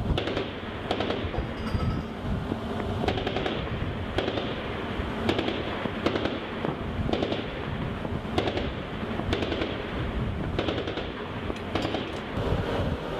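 Shipboard 25 mm cannon and .50-calibre machine guns firing short bursts about a second apart, over a steady background noise.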